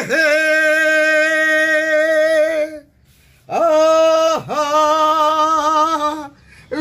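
A man singing unaccompanied in a high voice: two long held notes of a Chhattisgarhi song, each scooping up at the start, with a short break between them.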